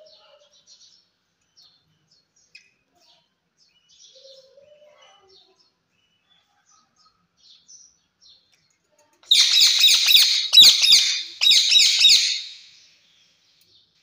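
Rose-ringed parakeet calling: soft scattered chirps, then about nine seconds in a loud run of rapid harsh screeches lasting some three seconds, broken once by a short pause.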